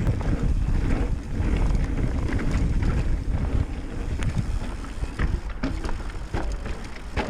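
Mountain bike ridden at speed along a trail: wind buffeting the camera microphone and a steady low tyre rumble, with frequent short rattles and knocks from the bike over rough ground.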